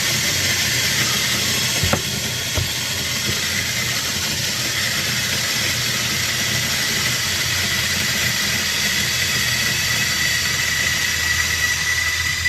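Zerno electric burr coffee grinder running, grinding a dose of coffee beans: a steady high whine over a grinding hiss, with a couple of short clicks about two seconds in.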